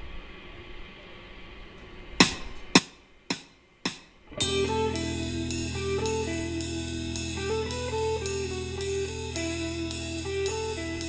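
Electric guitar with drums. After a low hum and three loud, sharp hits, a steady drum beat of about two strokes a second comes in about four seconds in, with the guitar playing a repeating riff over a held bass note.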